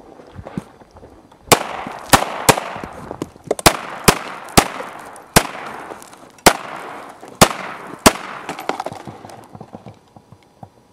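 High Standard HD Military .22 Long Rifle semi-automatic pistol firing ten shots in about seven seconds at an uneven pace, each sharp crack trailing off briefly.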